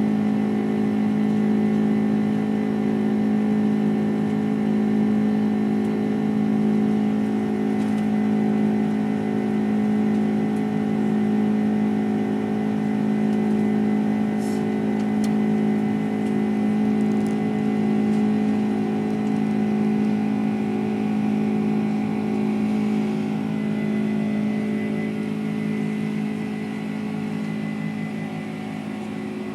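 Boeing 767 jet engines heard from inside the passenger cabin, a steady, loud drone with a low hum and a thin high whine. The level eases slightly near the end.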